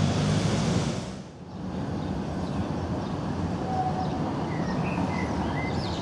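Tram running close by, a steady low rumble that cuts off about a second in. It gives way to quieter street ambience with a tram in the distance and a few short high chirps.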